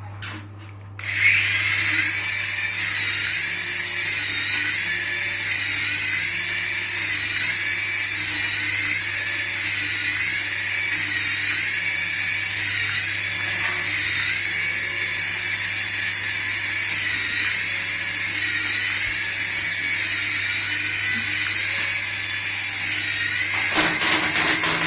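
A battery-powered toy's electronic whine: a loud, high-pitched sound that starts about a second in and warbles up and down about once a second, over a low steady hum.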